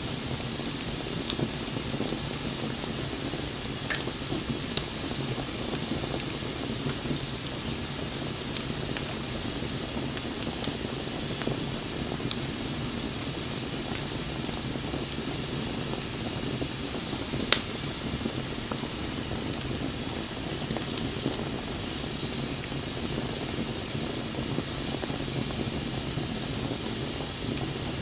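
Campfire of burning wood: a steady hiss with scattered sharp crackles and pops, a few seconds apart.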